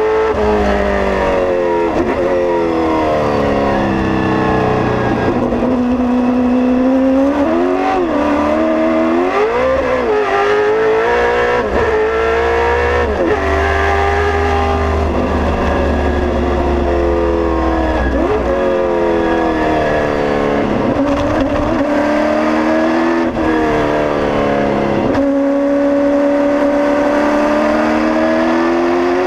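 Holden Torana SLR5000 race car's V8 engine at full race pace, heard from inside the cockpit. The engine note climbs through each gear and drops sharply many times at the gear changes, with a few quick rises and falls about a third of the way in.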